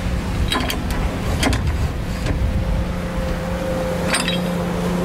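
A motor running steadily with a low hum and rumble, with a few short sharp clicks over it.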